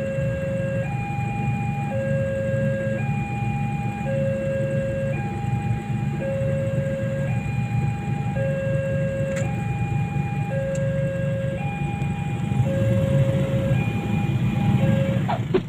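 Railway level-crossing warning alarm: an electronic two-tone signal alternating between a low and a higher tone, changing about once a second, warning that the crossing is closed for a train. Under it is the steady low rumble of a crowd of idling motorcycle engines.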